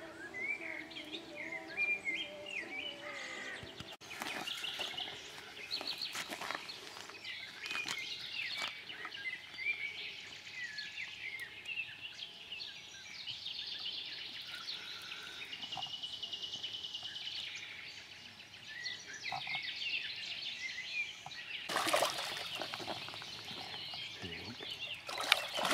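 Several birds singing and calling, a steady stream of chirps and warbles, with a few short clicks and a brief rush of noise about 22 seconds in.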